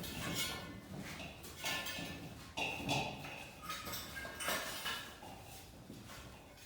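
Scattered metallic knocks and clinks as metal pieces are handled and set in place, several separate strikes with a short ring, the loudest about three seconds in.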